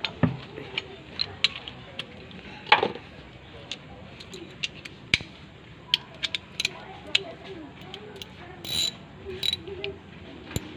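Homemade chain wrench working on a diesel fuel filter canister: irregular sharp metallic clicks and clinks, with a few louder knocks and two short rasps near the end.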